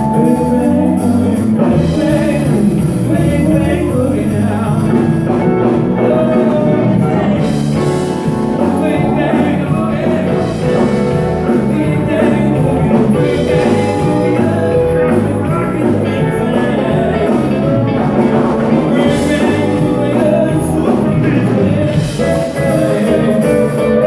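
Live country-rock band playing a dance number with electric guitars, bass and drums, and a singing voice over it.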